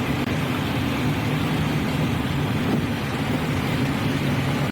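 A car's engine running steadily, with road and wind noise, heard from inside the car.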